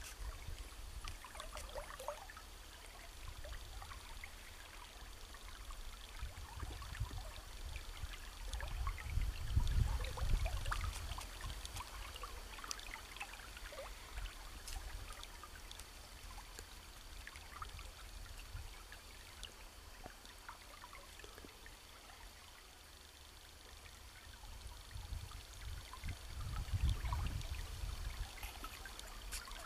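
Small river's water trickling and splashing in many small ticks around a wading angler, with a hooked fish splashing at the surface near the end. A low rumble swells up twice, about ten seconds in and near the end.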